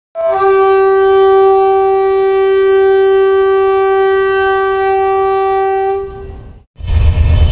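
One long, steady horn-like note held for about six seconds, opening with a brief higher note, then fading out. After a short break, the loud low rumble of a moving train starts near the end.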